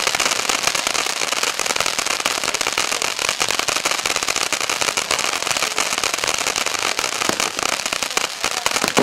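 Ground firework fountain going off, spraying sparks with a loud, dense, unbroken crackle of rapid pops.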